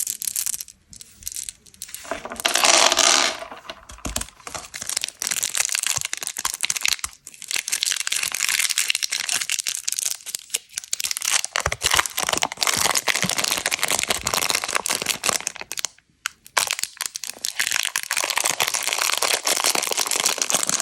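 Plastic candy packaging crinkling and crackling as it is handled and crushed, in a dense run of small crackles. There is a louder burst about two to three seconds in and brief pauses near the middle and about three quarters of the way through.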